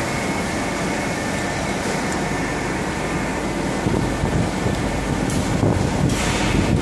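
Steady drone of factory machinery and ventilation in a plastic lens injection-moulding workshop, with a faint steady whine over it.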